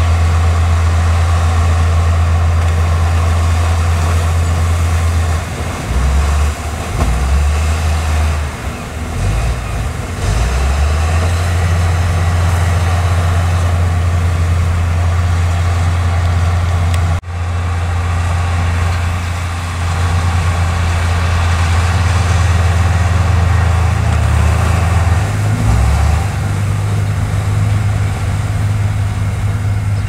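Heavy diesel engines of a crawler bulldozer and a dump truck running loudly, the low engine note shifting as the bulldozer takes up and eases off load while pushing soil. A sudden short break in the sound just past halfway.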